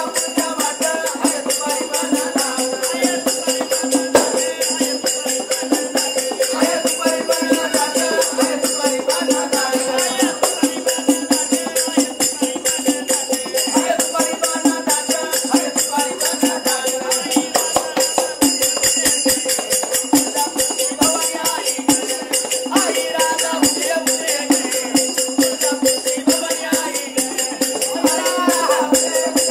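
Gondhal devotional folk music: a fast, steady jingling rhythm of hand cymbals with drum beats over a steady drone, and a singing voice coming in and out.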